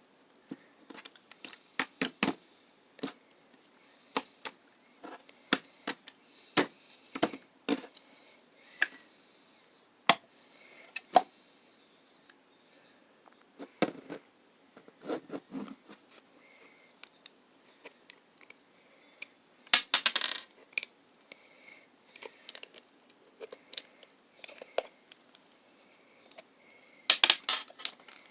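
Slime being squished and poked by hand, giving many sharp clicks and pops, with two longer crackling bursts about twenty seconds in and near the end.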